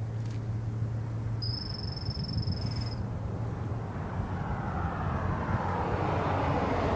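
Road traffic: a steady low engine hum, then a passing vehicle's engine and tyre noise swelling over the last few seconds. A single high, steady whistle lasts about a second and a half, starting about a second and a half in.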